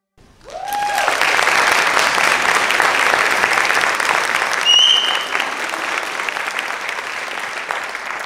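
Audience clapping and cheering at the end of a dance number. A whooping shout comes about half a second in and a shrill whistle about five seconds in, and the clapping slowly dies away toward the end.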